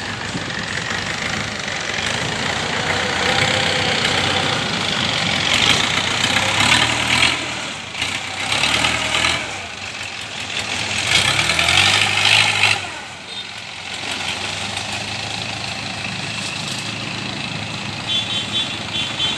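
Kubota DC70 combine harvester's diesel engine running, its noise swelling louder three times in the middle as the machine works. A repeated high beeping, like a reversing alarm, starts near the end.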